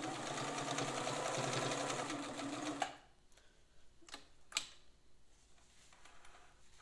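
Freshly overhauled West German Pfaff 1196 sewing machine running steadily as it stitches a wide zigzag, stopping abruptly about three seconds in. Two soft clicks follow.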